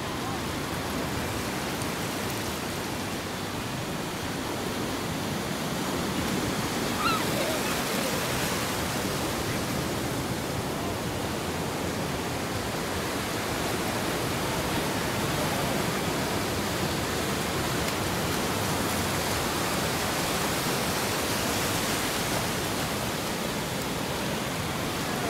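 Ocean surf washing onto a sandy beach: a steady rushing noise.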